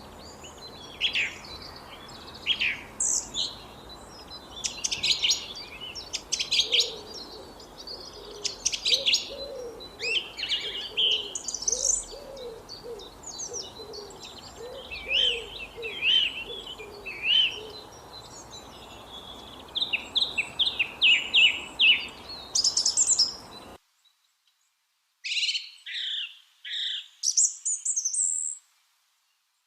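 A flock of lovebirds chirping and screeching in quick, sharp high calls. For a stretch in the middle, a lower call repeats steadily underneath. Near the end the background hiss cuts out suddenly, leaving a few bursts of chirping over silence.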